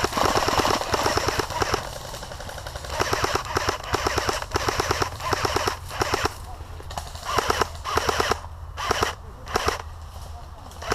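Airsoft electric rifles firing full-auto: rapid bursts of sharp clicking shots, each about a second long, repeated with short pauses between them.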